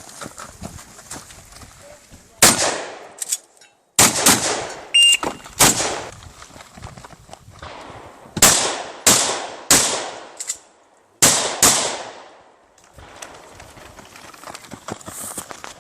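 Shotgun firing about nine loud shots at an uneven pace, some in quick pairs or threes with pauses between, as in a practical shotgun stage. Low handling clatter sounds between the shots.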